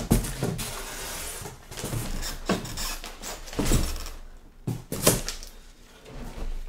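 A wrapped bicycle being packed back into a large cardboard box: packing paper and foam rustling and crackling, with several knocks and thumps against the cardboard.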